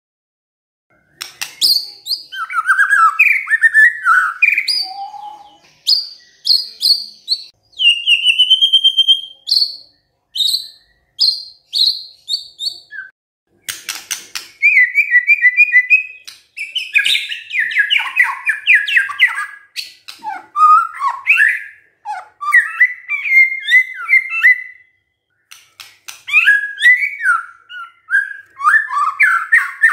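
White-rumped shama (murai batu) in full song: a long, varied run of loud whistled phrases, trills and rapid repeated notes with short pauses between them, starting about a second in. A short burst of sharp clicks comes about fourteen seconds in.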